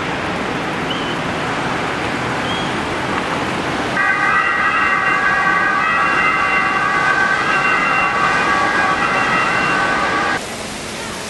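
A cruise ship's horn sounding one long, steady multi-tone blast of about six seconds, starting about four seconds in, over a constant loud rushing noise.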